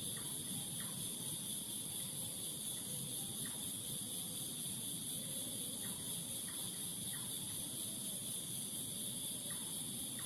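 Night insect chorus: crickets trilling steadily in two shrill high pitches, with a few brief faint chirps now and then over a low background hum.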